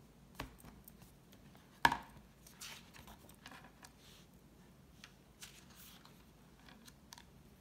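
A hardcover picture book being opened on a wooden table and its pages turned by hand: one sharp knock about two seconds in, then soft paper swishes and a few light taps.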